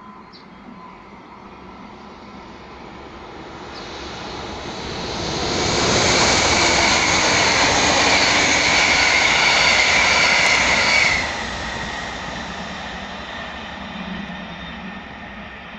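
An Alex regional train, a class 223 diesel-electric locomotive hauling six coaches, approaches and passes close by with a rumbling roar of engine and wheels. The sound builds over the first six seconds and stays loud for about five. It then drops off suddenly and fades as the train moves away.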